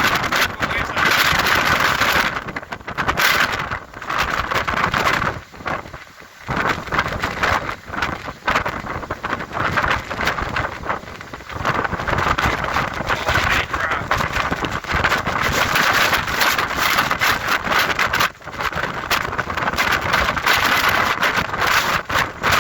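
Hurricane-force wind gusting hard across the microphone, a dense buffeting roar that eases in a few brief lulls before surging again.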